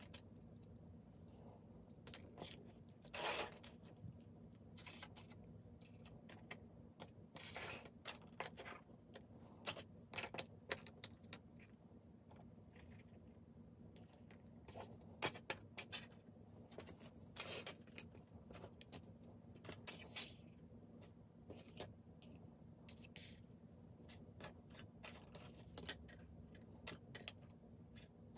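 Tiny windowed miniature-toy boxes being slid across and set down on a tabletop: scattered light taps, clicks and short scrapes, over a faint steady hum.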